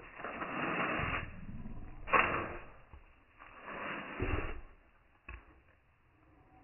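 Small dog huffing and snuffling excitedly in several breathy bursts about a second each, with a sharp click about two seconds in.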